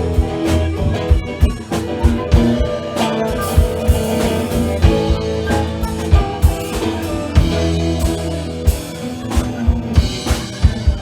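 Live band playing a blues boogie: a drum kit keeps a steady beat under guitar and bass.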